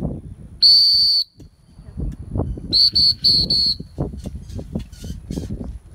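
Handler's dog whistle signalling to a swimming retriever: one long, loud, high blast, then about two seconds later three short blasts in quick succession.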